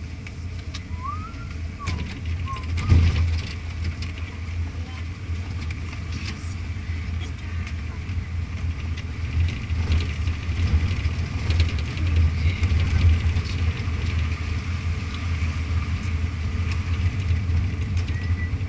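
Vehicle engine running with a steady low drone under the rumble of tyres on a dirt road, heard inside the cabin. There is a sharp thump about three seconds in.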